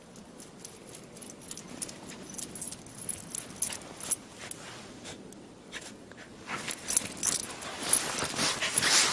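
Footsteps crunching through deep snow, irregular crisp crunches that grow denser and louder after about six and a half seconds.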